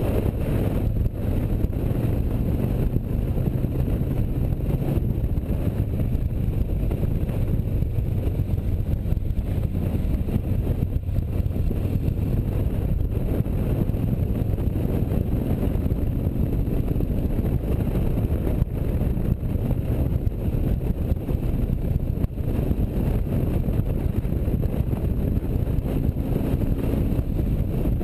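Touring motorcycle engine running steadily at road speed through curves, with wind noise on the microphone.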